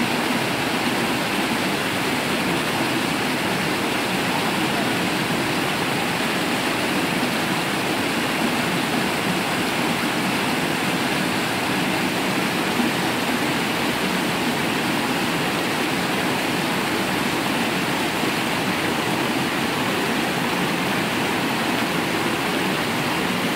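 A small creek cascading over smooth rocks: a steady, unbroken rush of running water.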